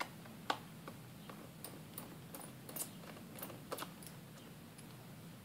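Irregular light clicks and ticks of a small metal tool working at the edge of a 2007 white MacBook's plastic case and its screws, over a steady low hum.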